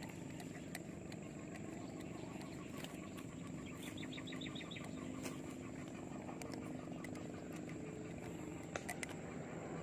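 Quiet outdoor ambience with a low steady hum; a bird gives a short, rapid trill of chirps about four seconds in, and a few faint clicks come near the end.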